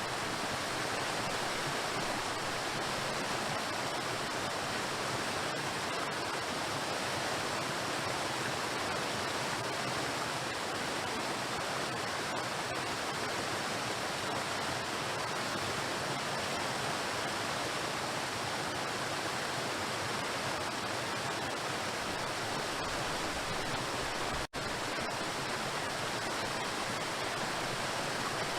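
Waterfall: water crashing onto rocks in a steady, continuous rush, broken by a split-second dropout in the sound near the end.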